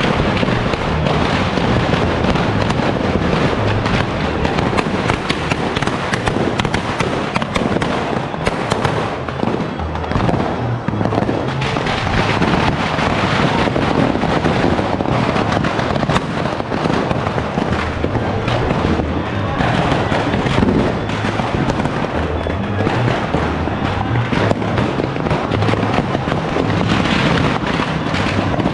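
Dense, continuous popping and crackling of fireworks and firecrackers, with music playing underneath.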